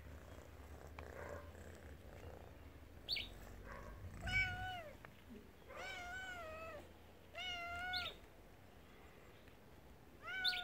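Domestic cat meowing: four drawn-out meows with a wavering pitch, starting about four seconds in and the last one right at the end, with a few short, sharp high chirps in between.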